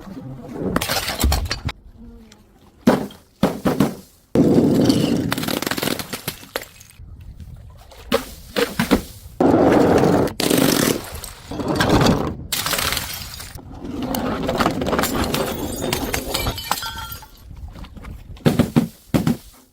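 Glass bottles smashing one after another: a series of sharp crashes, several trailing off into a second or two of breaking and tinkling shards.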